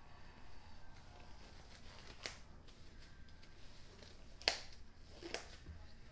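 Purple disposable gloves being pulled onto the hands: faint rubbery rustling with three sharp snaps of the cuffs, the loudest about four and a half seconds in.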